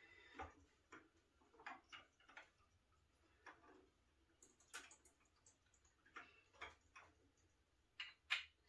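Faint, irregular clicks and taps of a collectible figure's small parts being handled and fitted into place, about a dozen in all.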